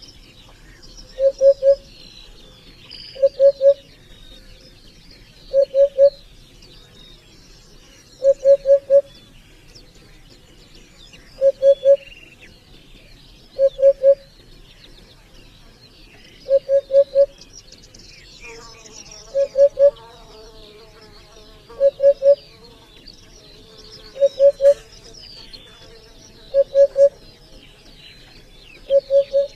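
A bird repeating a short call of three or four quick, low, pure notes about every two to three seconds, over a background of faint high chirping and insect buzzing.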